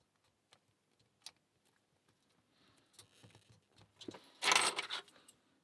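Metal lock picks and a small padlock being handled: a few light clicks, then a louder metallic clatter and jangle lasting about half a second, about four and a half seconds in.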